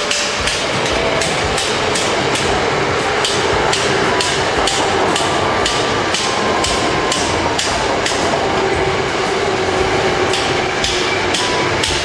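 Construction hammering: evenly repeated hammer strikes, about three a second, over a steady machine hum.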